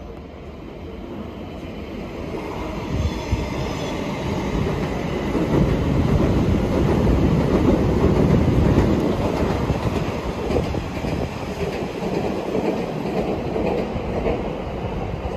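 A non-stopping train running through the station platform, its rumble and wheel noise growing louder over the first several seconds, loudest about halfway through, then easing off slightly.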